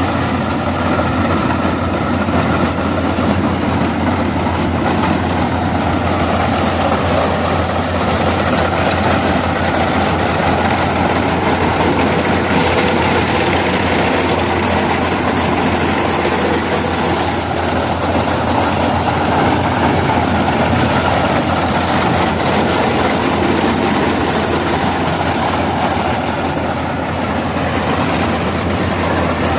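Yanmar AW82V combine harvester running at work, its engine and threshing machinery making a loud, steady drone.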